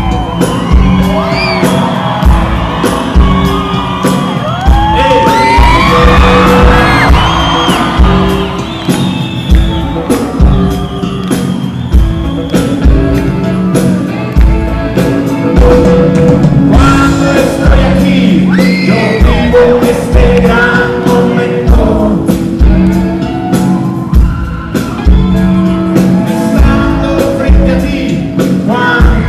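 Rock band playing live, with a male lead vocal over a steady drum beat.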